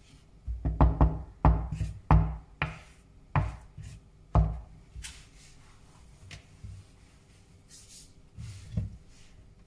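Spatula stirring thick chocolate cake batter in a plastic mixing bowl, folding the flour and cocoa in: a run of dull knocks and scrapes against the bowl, about one every half second to a second, for the first four or five seconds, then quieter, with one more knock near the end.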